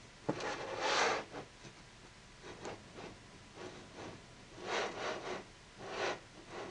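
A click, then a string of short rubbing, rustling noises close to the microphone, about six of them spread unevenly.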